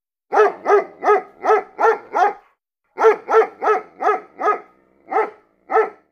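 A dog barking in a quick series: six barks at about three a second, a short pause, five more, then two spaced barks near the end.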